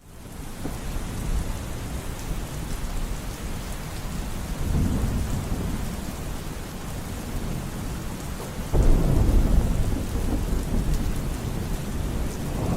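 Steady heavy rain with rolling thunder. A low rumble swells about five seconds in, and a louder thunderclap breaks in suddenly near the nine-second mark and rumbles on.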